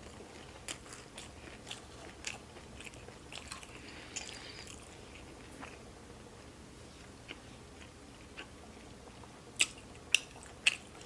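Close-up chewing and biting mouth sounds while eating takeout food, with scattered small wet clicks and three sharper clicks near the end.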